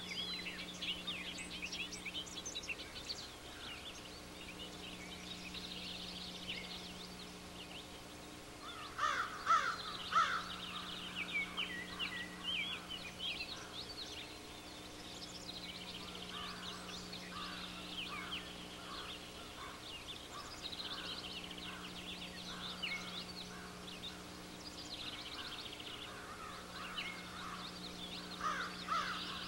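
Wild birds calling and chirping in a busy chorus, with louder, harsher calls about a third of the way in and again near the end. A steady low hum runs underneath.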